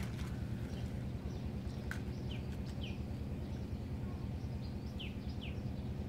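Birds chirping, short falling chirps in two pairs, over a steady low rumble of background noise.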